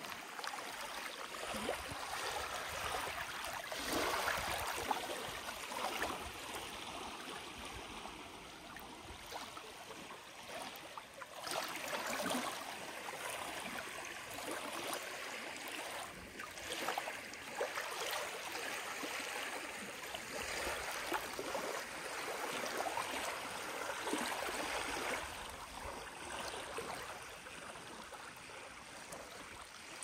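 Small waves on a lake shore washing and lapping, swelling and easing every few seconds.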